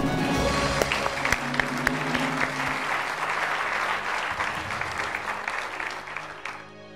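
Studio audience applauding a correct quiz-show answer, with a short musical sting underneath; the applause dies away near the end.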